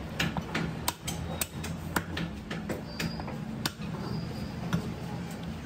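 Large butcher's knife clicking and tapping against a split goat skull and a wooden chopping block as meat is scraped and pried off the bone: irregular sharp clicks, several close together at first, then a few spaced out. A steady low hum runs underneath.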